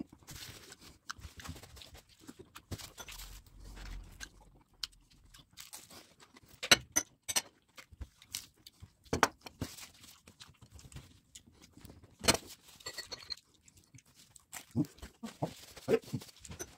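Close-up eating sounds: chewing vegetable spring rolls, heard as an irregular string of wet mouth smacks and short sharp clicks, a few of them louder.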